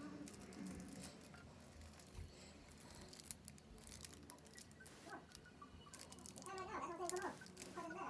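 Faint clicks and rustles of makeup being handled and applied, with a faint pitched sound near the end.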